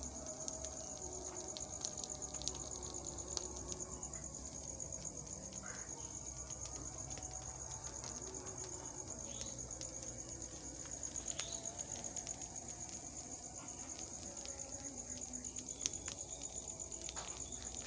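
Insects trilling: a steady, high-pitched, fast-pulsing chorus, with a few faint clicks.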